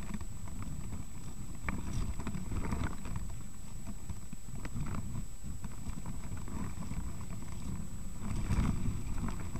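Low wind rumble on the microphone with scattered knocks and clicks from handling the camera, over a faint steady high-pitched whine.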